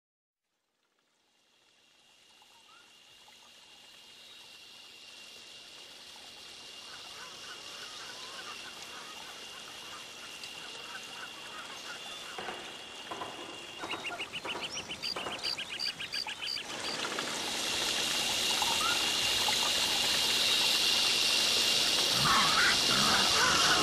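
Layered ambient film soundscape fading in from silence. A steady high whine and a low hum carry scattered short chirps. There is a brief rapid pulsing about two-thirds through, and the whole swells louder and noisier toward the end.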